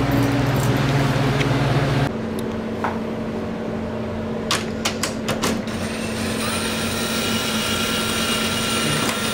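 Steady low machine hum, with a handful of sharp clicks and knocks in the middle, like parts being handled; the hum changes abruptly about two seconds in.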